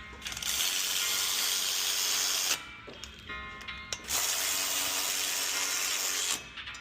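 Two loud bursts of hissing, whirring noise from a cleaning tool on brake hardware, each about two seconds long with a short gap between them. Background music plays in the gaps.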